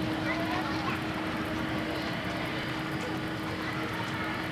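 Distant jet airliner's engines running on the runway: a steady, even noise with a constant low hum underneath.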